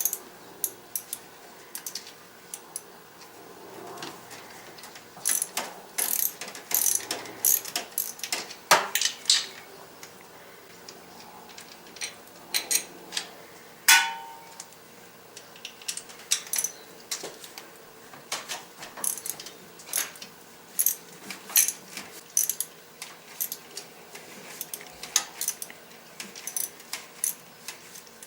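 Ratchet wrench clicking in short irregular runs as the fuel rail retaining bolts are backed out of an LT1 V8, with light metal clinks from socket and bolts. About fourteen seconds in, one louder metal clink rings briefly.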